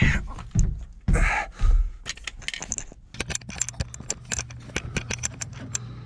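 A few heavy thumps and scuffs, then a quick run of light clicking and jangling of small metal items being handled, in the cramped crawlspace under a house. A faint low hum runs under the clicking.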